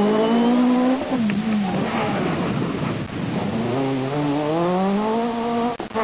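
Renault Clio Maxi Kit Car's naturally aspirated four-cylinder rally engine at high revs, its pitch climbing, dropping away about a second in, then climbing steadily again as the car accelerates hard. The sound cuts off suddenly near the end.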